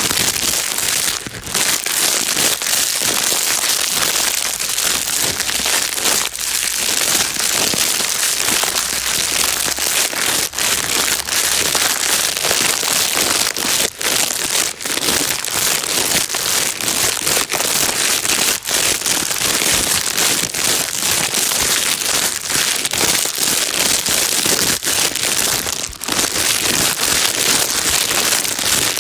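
Plastic bag being crinkled without a break: a dense, steady rustling crackle with sharp crackles all through, strongest in the high end.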